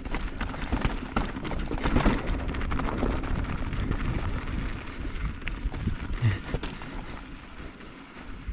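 Mountain bike rolling down a dry dirt singletrack: tyres rumbling and crunching over dirt and small stones, with frequent clicks and rattles from the bike over the bumps.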